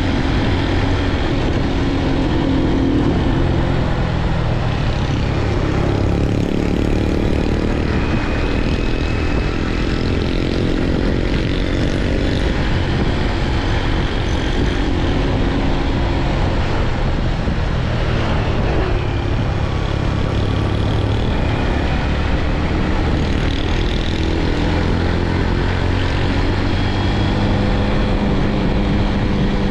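Motorbike engine running while riding, with wind rushing over the microphone; the engine note rises and falls a few times as the speed changes.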